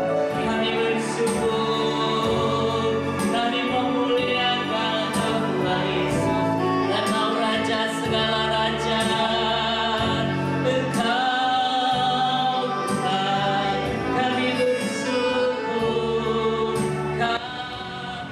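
Christian worship song in gospel style: many voices singing together with instruments and a steady beat. The music drops in level about a second before the end.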